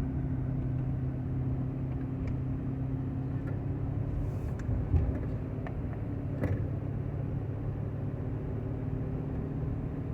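A 1995 Honda Accord coasting downhill off the throttle, heard from inside the cabin: a steady low growling drone from the front of the car over tyre and road noise, with a couple of brief knocks in the middle. The growl comes only off load and goes away under gas, and its cause has not been found.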